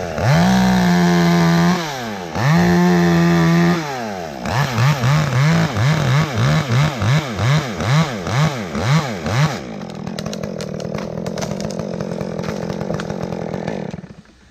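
Chainsaw cutting through a rigged limb at full throttle in two long pulls, then revved in quick blips about twice a second, then dropping to idle.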